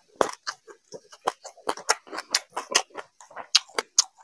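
A person chewing food close to the microphone, with wet mouth smacks and clicks about five times a second.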